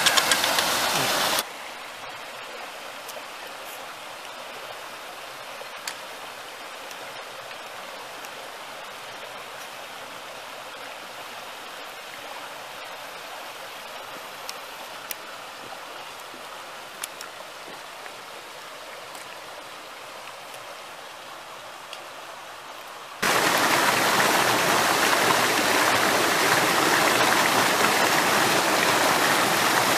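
Rushing water of a rocky mountain stream and small waterfall, an even rush. About a second and a half in it drops to a quieter, more distant rush with a few faint clicks, and after about twenty-three seconds it is loud and close again.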